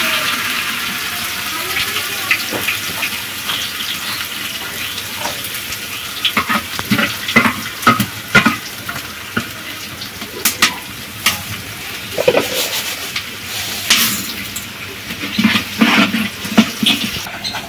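A metal ladle stirring khichuri in a large aluminium pot on a clay stove, scraping and clinking against the pot's sides many times in irregular clusters. Under it is a steady hiss that fades over the first few seconds.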